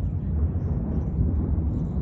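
Low, gusting rumble of storm wind buffeting the microphone.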